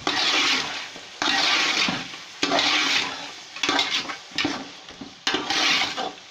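Beef and onion-spice masala sizzling in a metal pot as it is stirred with a metal spatula, a little water having just gone in on the hot oil. The sizzle comes in sharp surges roughly once a second with each turn of the spatula.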